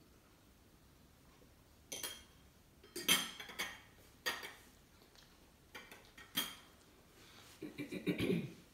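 Glass treat jar and its lid clinking and knocking as they are handled, several sharp clinks starting about two seconds in. Near the end, softer knocks and rustling as a person shifts onto hands and knees on a blanket over the floor.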